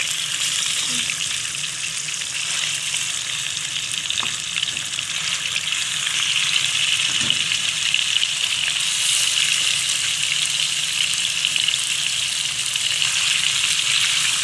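Chicken pieces sizzling and crackling in hot ghee in a kadhai as more pieces are laid in; the sizzle grows louder about six seconds in.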